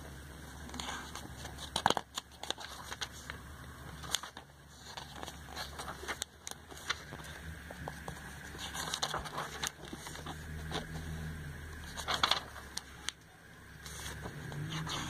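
Glossy catalogue pages being handled and turned by hand: irregular paper rustling and crackling with a few sharp snaps of a page. A low hum sits underneath in the second half.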